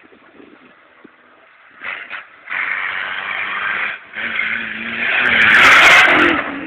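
A small car driven hard across a rough grass field. Its engine and tyres come up loud about two seconds in, drop out briefly about four seconds in, then rise again to their loudest as the car passes close near the end.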